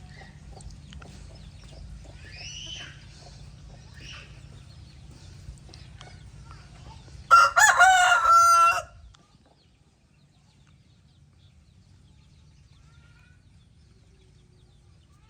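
A rooster crows once, loudly, about halfway through, a single call of about a second and a half. Before it there are a few faint, short high bird calls over a steady low hum.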